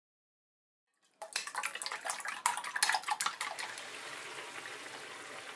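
Ground meat and tofu simmering in a frying pan, sizzling and crackling as beaten egg is poured in. It starts about a second in, and the crackling thins out into a steady sizzle after a couple of seconds.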